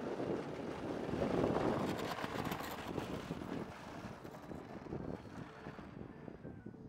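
Electric motor and propeller of a radio-controlled P-47D Thunderbolt model on its takeoff roll, loudest a second or two in and fading as the plane pulls away down the road. Wind is rushing on the microphone, and music comes in near the end.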